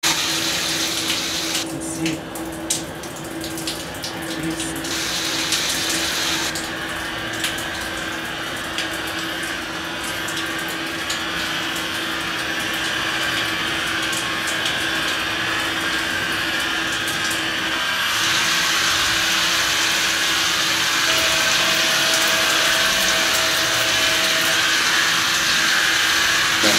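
Shower spray running, a steady hiss of falling water, with a steady hum underneath and scattered clicks during the first several seconds.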